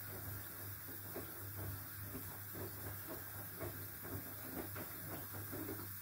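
Whirlpool FSCR90425 front-loading washing machine in its rinse cycle. The drum turns while wet laundry tumbles and rinse water sloshes in irregular splashes over a steady low hum. The splashing stops near the end.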